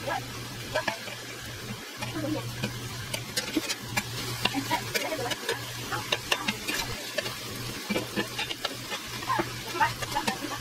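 Chicken pieces sizzling on a hot griddle while a slotted metal spatula scrapes and clicks against the pan, turning them over and over.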